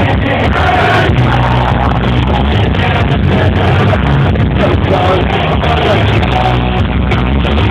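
Punk-rock band playing live through a concert PA, recorded from the crowd on a camera microphone: loud and steady, muffled and overloaded, with the highs cut off.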